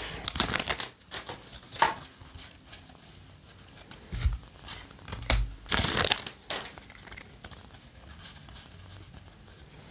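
Yu-Gi-Oh! trading cards being flipped through by hand, card stock sliding and flicking against card stock in short, irregular rustles; the loudest come a little past halfway.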